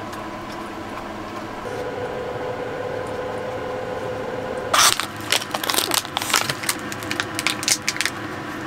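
A steady hum, then from about halfway through a quick irregular run of sharp crunches and cracks lasting about three seconds: a dry dog treat being crunched.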